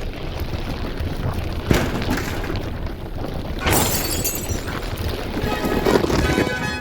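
Continuous loud rumbling noise with a sharp knock about two seconds in and two crashing bursts, one near the middle and one near the end.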